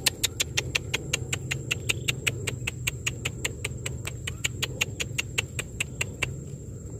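Quick, even clicks, about five a second, made to lure an eel while a baited hook line is jiggled over its hole in shallow water; they stop about six seconds in.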